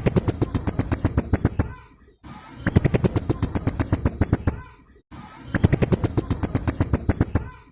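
Blue-crowned hanging parrot (serindit) calling in rapid-fire bursts of sharp, high, shrill notes, several a second. There are three bursts of under two seconds each, with short pauses between them.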